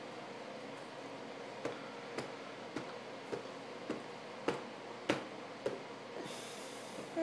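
A series of sharp, evenly spaced clicks, a little under two a second, starting about a second and a half in over a steady faint hum, with a short hiss near the end.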